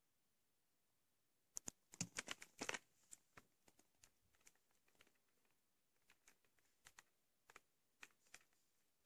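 Faint clicks and light ticks of a plastic VHS clamshell case being handled: a quick flurry of them about one and a half seconds in, then scattered single clicks.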